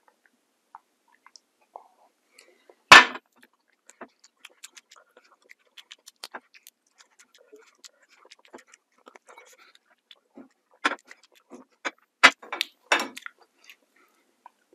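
Close-miked eating sounds: scattered small mouth clicks and smacks. There is a single sharp knock about three seconds in, and a cluster of louder clicks and crunches between about eleven and thirteen seconds.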